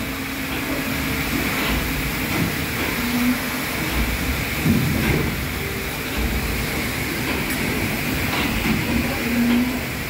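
Paddle steamer Waverley's three-cylinder diagonal triple-expansion steam engine running at sea, its pistons, cranks and connecting rods turning the paddle shaft. It makes a steady mechanical churn with repeated low pulses and light clatter.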